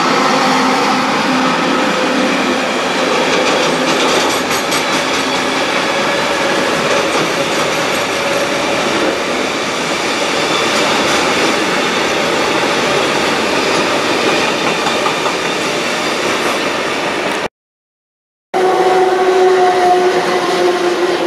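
Freight train hauled by an SNCF electric locomotive passing close at speed: a steady, loud rumble and wheel noise from the wagons. After a sudden cut about 17 seconds in, a second electric locomotive passes with a steady two-note whine over its wheel noise.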